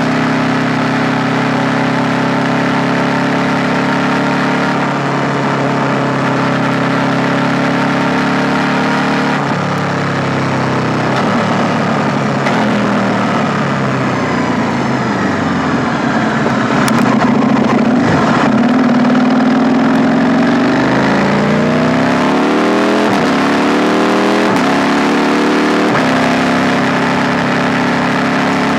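KTM 890 Duke R's parallel-twin engine running at steady low revs for the first several seconds, then easing off with wandering, falling pitch. In the last third it accelerates through the gears: three rising pulls, each cut off by a quick upshift, before settling into steady running.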